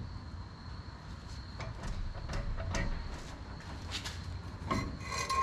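Scattered light metal clicks and knocks as a new upper ball joint's stud is worked into the upper control arm of a Chevrolet Trailblazer's front suspension, over a steady low hum, with a short squeak or clank near the end.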